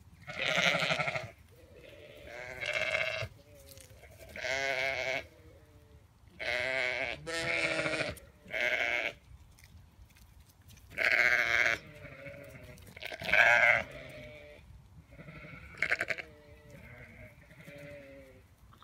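Zwartbles sheep bleating over and over: about nine loud calls, each under a second long and a second or two apart, then fainter calls near the end.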